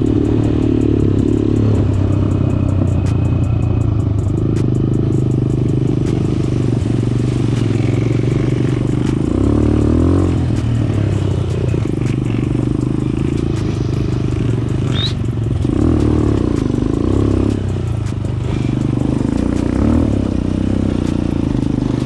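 Eagle Motorsport 250cc quad bike engine running under load on a rocky climb, the revs rising and falling in places. Stones click and clatter under the tyres.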